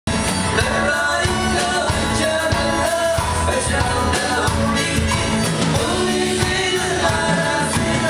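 Live band playing a song with a sung lead voice, over electric bass, strummed nylon-string acoustic guitars, congas and drum kit.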